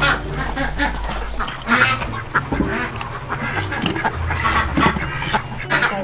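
Domestic ducks quacking repeatedly, many short calls one after another.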